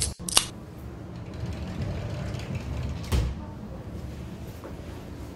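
Handling noise as the camera and belongings are moved about: a sharp click about half a second in and a dull knock about three seconds in, over a steady low hum.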